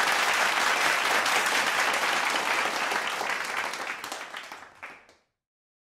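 Audience applauding, fading away over the last couple of seconds and ending about five seconds in.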